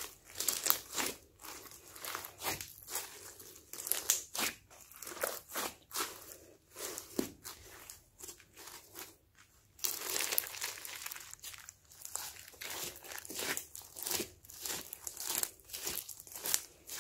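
Hands squeezing and kneading glossy slime packed with small foam beads: irregular crackling and crunching of the beads and slime, with a short lull about nine seconds in.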